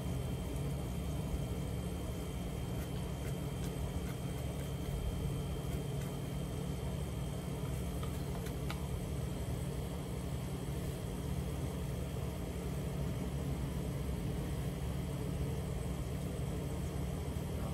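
Steady low mechanical hum that does not change, with faint thin high tones above it and a couple of faint ticks.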